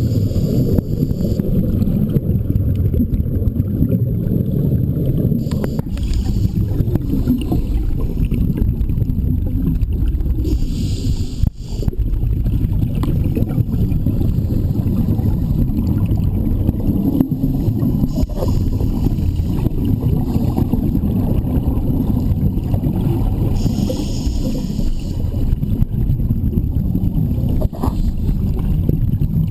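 Audio recorded underwater: a constant muffled low rumble, with scuba divers' exhaled regulator bubbles gurgling up in bursts every few seconds.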